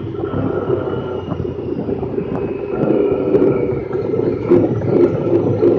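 Honda Pioneer 1000-5 side-by-side's parallel-twin engine running steadily as it drives along a dirt track, heard from inside the open cab, getting a little louder near the end, with scattered knocks and rattles from the vehicle over the bumps.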